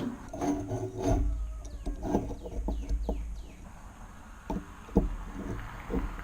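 A bird chirps a quick series of short falling notes in the first half. Several sharp clicks and knocks follow in the second half.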